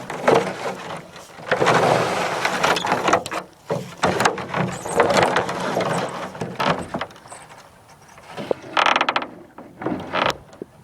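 Irregular rustling and handling noise in bursts, then a short rapid mechanical rattle near nine seconds.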